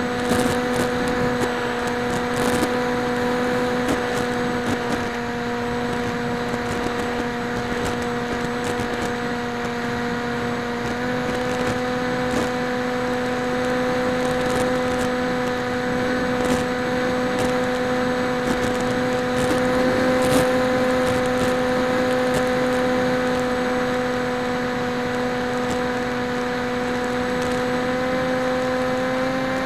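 PopWing flying wing's electric motor and propeller running at a steady throttle in flight, picked up by the onboard camera's microphone: a steady high hum that steps slightly higher in pitch about a third of the way in and again near the end, over a hiss of rushing air with a few faint clicks.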